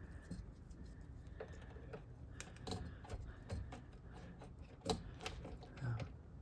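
Small scattered clicks and ticks of a small screwdriver working a terminal screw on the panel's mains switch, with wires being handled; a few sharper clicks stand out in the middle and about five seconds in.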